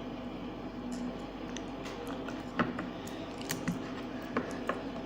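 Slime being squished and worked by hand: scattered small sticky clicks and pops, the loudest about two and a half seconds in, over a steady low hum.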